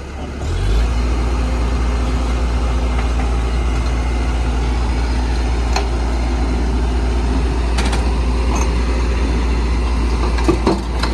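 Heavy diesel engine running steadily with a deep rumble, getting louder about half a second in, with a couple of sharp knocks near the end.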